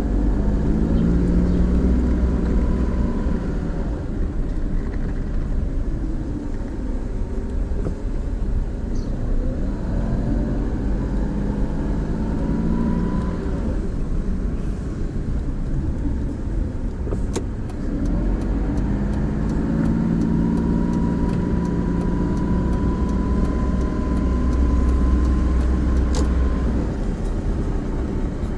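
Car engine and road rumble heard from inside the cabin while driving slowly through town, the engine note rising three times as the car pulls away and accelerates. In the second half a regular ticking, about three a second, runs for several seconds.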